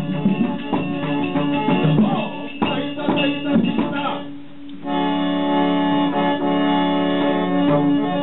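Live folk-theatre accompaniment: quick drum strokes under a reedy melody. After a brief dip about four and a half seconds in, steady held harmonium chords.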